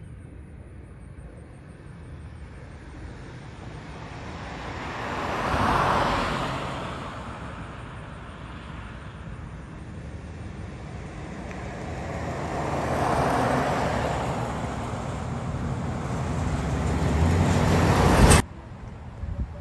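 Road traffic: cars passing, two swelling up and fading away one after the other, then a third building up until the sound cuts off abruptly near the end.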